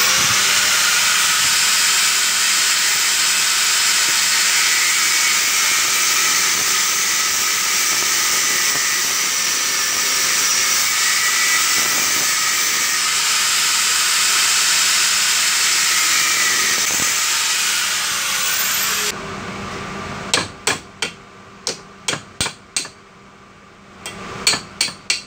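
Angle grinder running and cutting into the metal of a winch brake spindle, then winding down about three quarters of the way through. After it come about a dozen sharp hammer blows on the spindle, in two quick groups.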